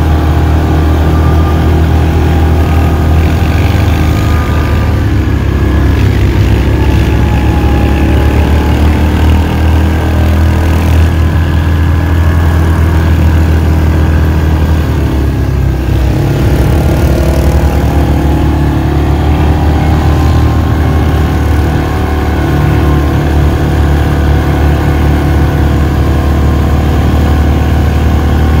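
ATV engine running loud and steady while riding, its pitch shifting as the throttle changes around five seconds in and again a little past the middle.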